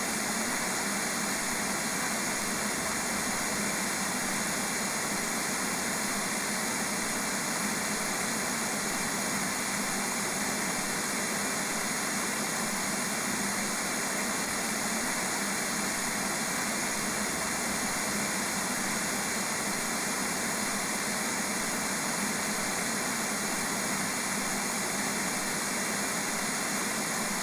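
Radio static: a steady, unchanging hiss of noise.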